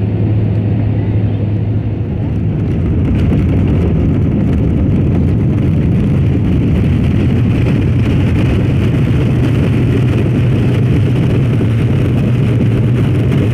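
Cabin noise of an Airbus A320-family jet during its landing roll on the runway: a steady, loud rush of engine and airflow over a low hum, growing a little louder about three seconds in.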